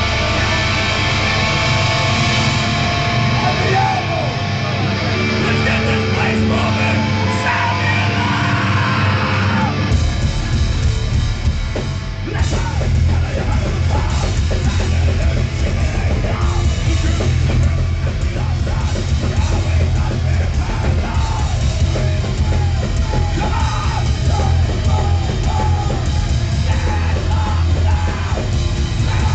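Hardcore punk band playing live, loud: ringing electric guitar chords for about the first ten seconds, then the drums come in and the full band plays hard with shouted vocals.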